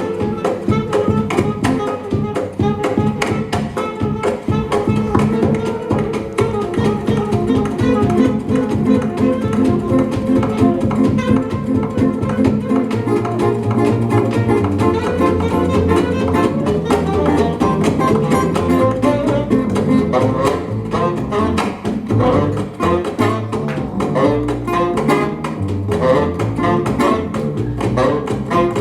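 Gypsy jazz band playing live: acoustic guitars strumming a steady swing beat over a double bass, with plucked melody lines on top. From about halfway through, the double bass's walking notes stand out more in the low end.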